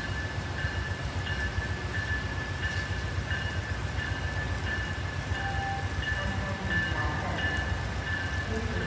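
Steady rain over a low rumble, with an approaching electric locomotive's bell ringing evenly, about three strokes every two seconds.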